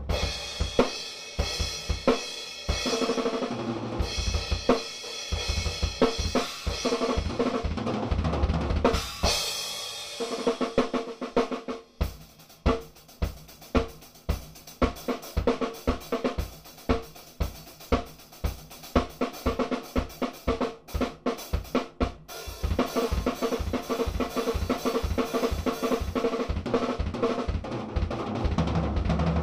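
Solo drumming on an acoustic drum kit: busy snare and tom fills with cymbal crashes, then from about twelve seconds in a steady run of bass drum strokes, about four a second, under snare and tom hits, with cymbals filling in again in the last part.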